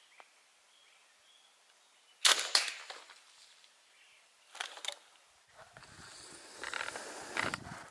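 A repeating crossbow slingshot rifle firing: a sharp snap of the released bands, the loudest sound, with a short rattle after it, then another pair of sharp clicks about two seconds later. Near the end comes a rustling noise with a low rumble.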